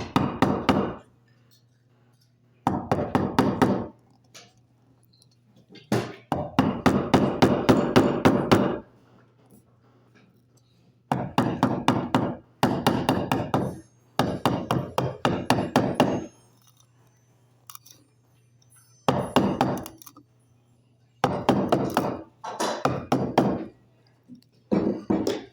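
Chisel being worked by hand: runs of quick knocks, several a second, each run lasting one to three seconds with short pauses between.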